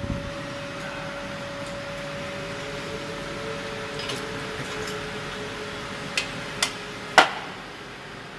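CNC fiber laser cutting machine running on 10 mm mild steel: a steady hiss under a steady hum whose pitch drops slightly about two thirds of the way in. Three sharp clicks come near the end, the last the loudest.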